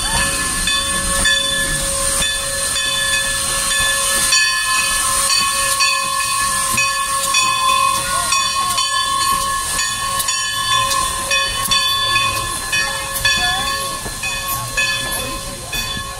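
Standing steam locomotive hissing steadily, with several steady whistling tones running through the hiss.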